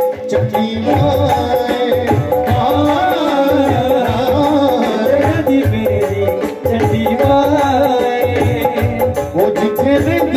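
Live devotional folk music (a jagran bhajan): a dhol drum keeping a steady beat under a wavering melody line.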